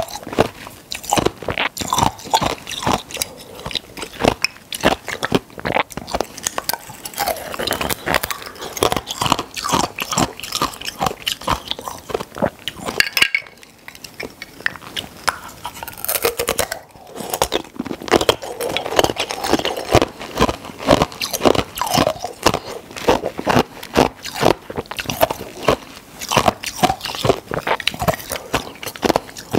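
Close-miked chewing of clear ice spheres: dense, rapid cracking crunches as the ice breaks between the teeth, with two brief pauses around the middle.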